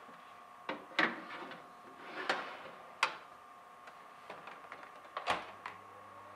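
Baking sheet slid onto the rack of a Panasonic Bistro countertop steam oven, clattering against the rails, then the oven door shut with a knock and light taps on the control panel; a low hum comes on near the end.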